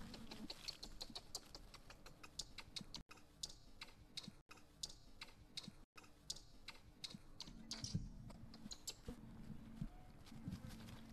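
Dry leaves and leaf litter crackling as macaques scramble over the ground and a baby macaque is dragged along it: quick, irregular clicks and rustles, broken by three brief drop-outs.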